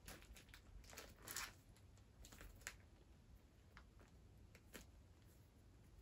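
Faint scattered crinkles and crackles of clear plastic and bubble-wrap packaging being handled and pulled open, with near silence between them.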